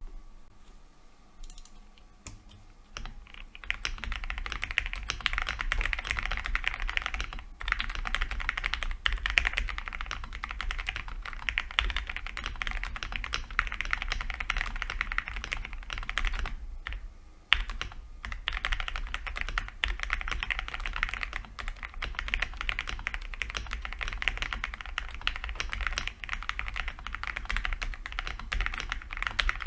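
Owlab Jelly Epoch mechanical keyboard with lubed and filmed Gateron Ink Black V2 linear switches and Akko ASA-profile keycaps, being typed on fast and continuously. A few soft keystrokes come first, and steady typing starts about three seconds in, with two short pauses.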